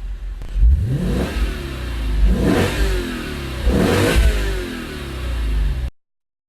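Lexus IS F's 5.0-litre V8 being revved, the engine note rising and falling back about three times. The sound cuts off abruptly near the end.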